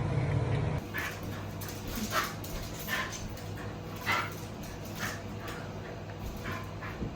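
A dog whimpering and whining in short, repeated cries, about one a second. They follow a steady rushing noise that cuts off just under a second in.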